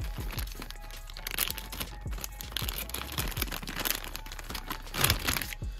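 A plastic parts bag crinkling and rustling in irregular crackles as it is handled and opened by hand.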